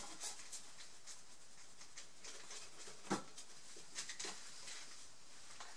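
Faint brushing and rubbing of a flat brush spreading white wood glue across a wooden canvas panel, with a short tick about three seconds in and a few smaller ones after.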